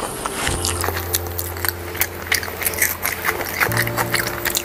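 Close-up biting and chewing of a saucy fried chicken leg piece: wet, crackly mouth clicks several times a second. A steady low hum runs underneath and shifts pitch about three and a half seconds in.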